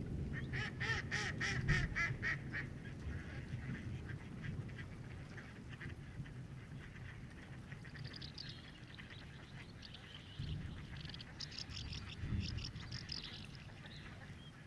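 A bird calling in two rapid runs of short repeated notes: one at the start and another about eight seconds in.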